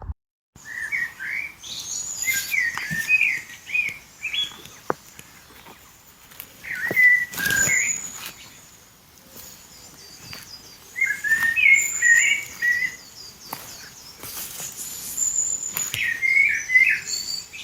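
Songbird singing outdoors: short phrases of quick, warbling chirps that come and go several times, with pauses between phrases.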